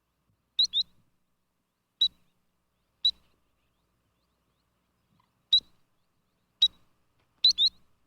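Sandpiper calling: short, high piping notes, some single and some in quick pairs, with silent gaps of one to two and a half seconds between.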